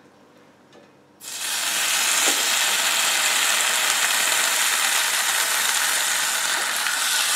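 A strip of bacon laid on the preheated griddle plate of a Ninja Foodi Smart XL Pro indoor grill starts sizzling suddenly about a second in, then keeps up a steady, loud crackling sizzle as it begins to fry.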